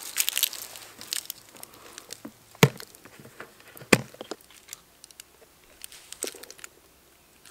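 Hands handling a hard-shell camera-trap case on a tripod, with scattered clicks and two sharp knocks about two and a half and four seconds in, and the rustle of dry leaves underfoot near the start.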